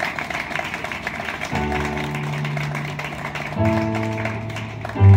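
Crowd applause, and about a second and a half in a Korg SP-280 digital piano begins playing slow sustained chords, a new chord about every two seconds, over the clapping.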